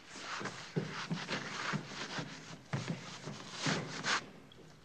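Hands scraping and patting along a rough stone wall. The scrapes come irregularly, mixed with soft knocks, and the loudest scrape comes near the end.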